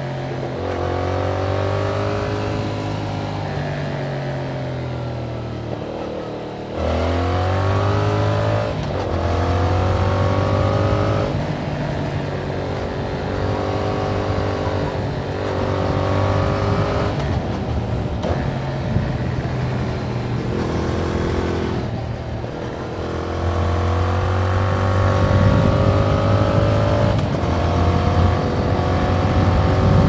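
Yamaha MT-07's 689 cc parallel-twin engine running through its stock exhaust under riding load. The pitch climbs in runs and drops back at several gear changes, ending in a long steady pull as the bike accelerates.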